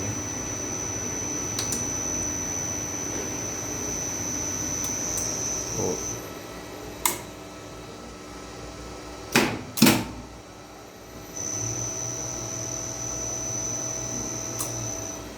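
Multimeter continuity buzzer sounding a steady high-pitched beep, meaning the probed elevator cable conductor is connected end to end; it stops about 6 seconds in and sounds again about 11 seconds in. A few sharp clicks fall in the gap.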